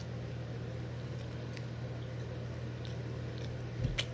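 Faint chewing and small mouth clicks as a bite of bagel is eaten, over a steady low hum; a soft thump just before the end.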